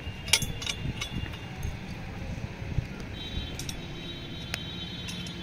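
Metal dish-mount parts and a bolt clinking and clicking as the bolt is worked through the bracket by hand. The clinks come singly and irregularly; the sharpest is about a third of a second in.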